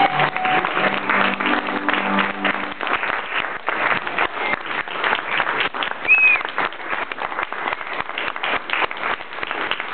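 Audience applauding: dense, steady hand clapping. Held notes of music fade out over the first three seconds.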